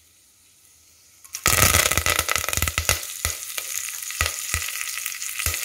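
Fresh curry leaves dropped into hot butter melted to ghee in a stainless-steel pressure cooker. After a short near-silent gap they hit the fat about one and a half seconds in with a sudden loud sizzle, then go on spluttering with sharp crackles and pops.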